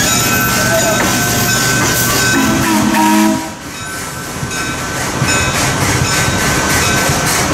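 Small-gauge train's open passenger cars rolling past with wheel and rail clatter, and a short steam whistle blast of about a second near the middle. After a sudden drop, a steam locomotive standing at the station, hissing steam.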